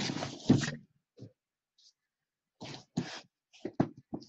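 A cardboard shipping case of card boxes being shifted and handled on a table: a loud scraping thump at the start, then a few light knocks and taps on the box.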